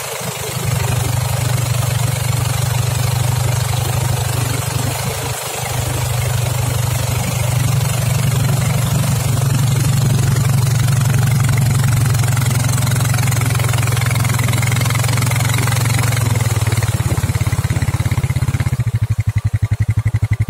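Motorboat engine running steadily under way while towing an inflatable tube, with wind and water rushing. About 19 seconds in it throttles back to a slower, pulsing idle as the boat slows.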